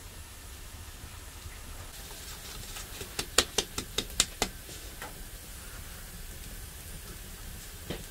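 Round metal hand sieve shaken over a bowl of flour, its rim knocking in a quick run of sharp taps, about five a second, for around a second and a half midway through. A light hiss of flour falling through the mesh runs under it.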